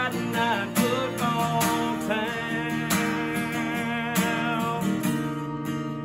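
Country song played on strummed acoustic guitar with band backing, the instrumental close just after the last sung line.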